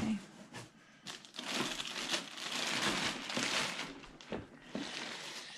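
Packing material crinkling and rustling as parts are unpacked, heaviest for a couple of seconds from about one and a half seconds in, with a few light knocks.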